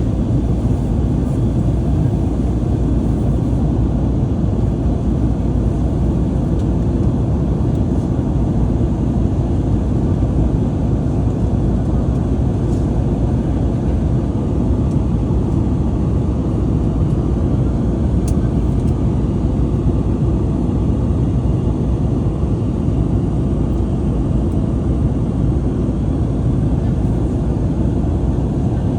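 Airbus A321LR neo airliner cabin in flight: a steady, low, even rumble of airflow and engine noise at cruise.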